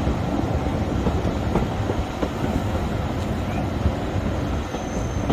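Moving train running steadily on the rails: a continuous low rumble with a few faint clicks.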